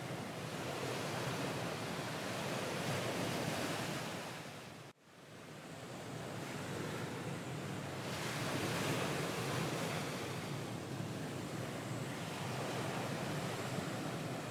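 Recorded ocean surf, a steady wash of waves. It fades away just before five seconds in, cuts back in at once and swells up again.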